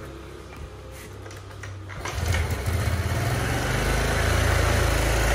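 A Honda scooter's single-cylinder engine is kick-started about two seconds in, catches, and then runs steadily.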